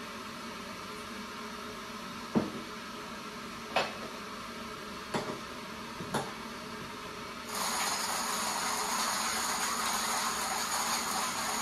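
Four light knocks of brewing gear, then about seven and a half seconds in a steady hissing rush starts abruptly and keeps going.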